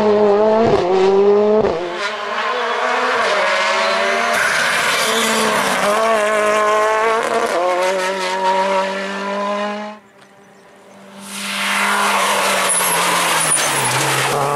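Ford Fiesta R5 rally car's engine driven hard through the gears, its pitch climbing and dropping again with each shift for about ten seconds. After a sudden cut, a second rally car, a Renault Clio, runs hard with its engine high and a hiss of tyre squeal.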